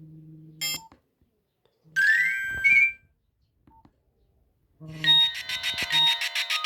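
Nokia 1280 mobile phone playing its built-in tones through its small speaker: a short electronic jingle with rising notes about two seconds in, then after a pause another ringtone starts, a rapidly pulsing electronic melody.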